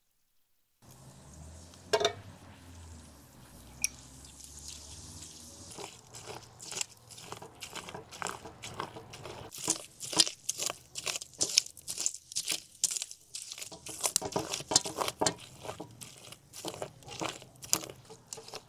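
Pomegranate seeds tumbling from a pan into a plastic colander, with a knock about two seconds in. From about six seconds on, a glass is pressed down on the seeds to squeeze out their juice, making quick, irregular wet crunching that gets louder.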